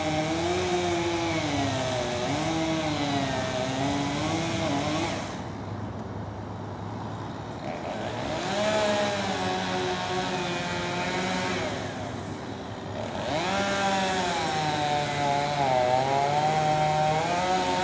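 Chainsaw cutting up in the tree, its engine pitch wavering up and down under load. It drops back twice to a quieter idle for a second or two.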